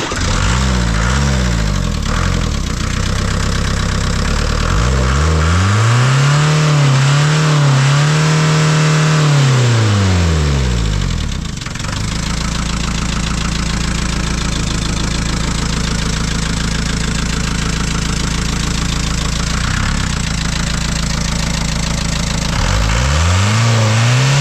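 Ford Transit 2.5 diesel engine catching and running, blipped a few times, then revved up and held for several seconds before dropping to a steady idle, then revved again near the end. It keeps running and no longer stalls now that air has stopped getting into the fuel line through the hardened pipe in the tank.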